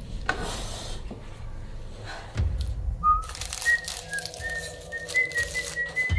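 A person whistling a tune of short notes, starting about three seconds in.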